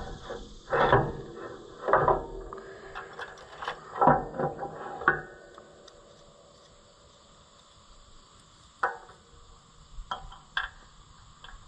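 Knocks and clatter of a wooden board and a steel part being handled against a mower's metal frame: several knocks in the first five seconds, then three sharp clicks near the end.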